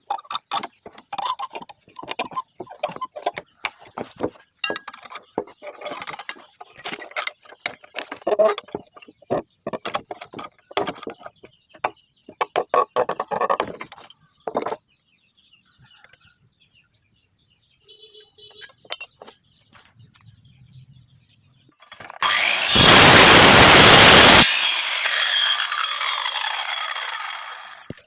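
Pallet boards being knocked and handled, with many irregular wooden clacks and knocks. Later a power tool runs loudly for about two and a half seconds, then winds down with a falling whine after it is switched off.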